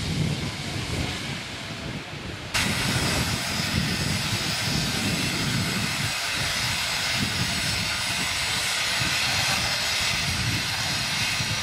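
Steam hissing from the standing rebuilt West Country class steam locomotive 34046 Braunton, with a low rumble underneath. The hiss becomes suddenly louder about two and a half seconds in and holds steady.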